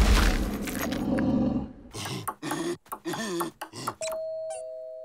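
Cartoon sound effects: a heavy low rumble dies away in the first couple of seconds, followed by a run of short cartoon vocal sounds. About four seconds in, a two-note doorbell-style 'ding-dong' chime sounds, the higher note first and then the lower, both ringing on.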